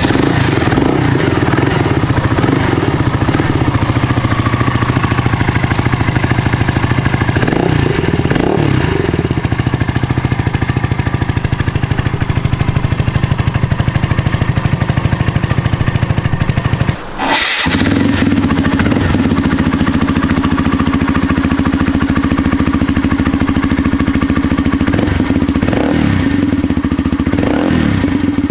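Honda Grom MSX125's single-cylinder 125 cc engine running steadily through an aftermarket exhaust, with a short rev about 8 seconds in and several quick revs near the end. It cuts out for a moment about 17 seconds in and comes back with a different exhaust tone.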